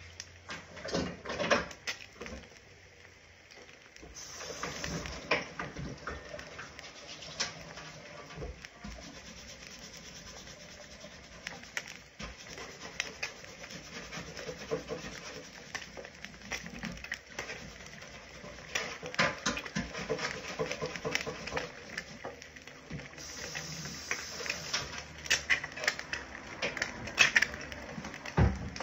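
Eggs frying in a stainless-steel skillet, with an irregular crackle and spitting of hot fat and occasional hissy stretches.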